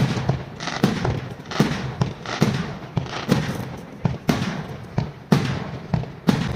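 Fireworks display: aerial shells bursting in a steady series of loud bangs, about one a second, each followed by a rolling echo.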